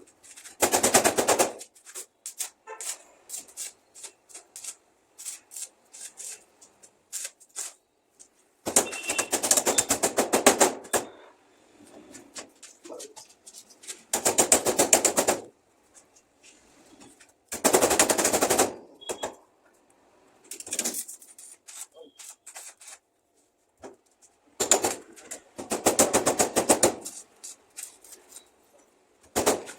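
Electric arc welding in short bursts: the arc crackles fast and harshly for one to two seconds at a time, several times over, with small ticks and taps between the bursts.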